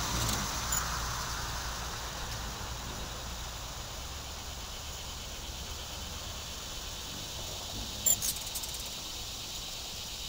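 A steady, high-pitched drone of insects, with a low steady hum beneath it and a couple of sharp clicks about eight seconds in.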